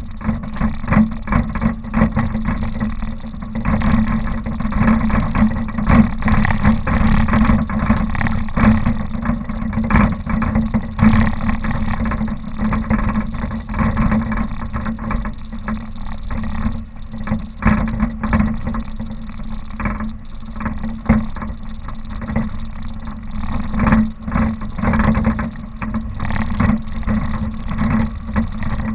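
Suzuki Vitara driving off road: the engine runs steadily under a dense rumble, with frequent knocks and jolts from the rough ground.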